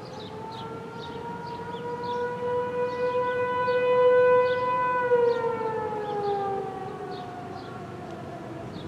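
American Signal T-128 outdoor warning siren sounding a steady wail, swelling loudest about four seconds in. It then winds down, its pitch falling and fading over the last few seconds as the test signal ends.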